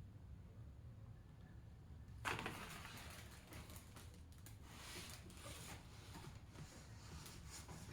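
Faint handling noises over a low steady hum. There is a short rustle or scrape about two seconds in, then scattered light clicks and rustles.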